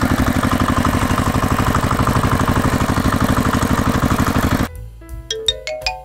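A loud, rapidly pulsing electronic sound effect, about ten beats a second, that cuts off abruptly near the end. It is followed by a quick run of short, bright chime-like notes at different pitches.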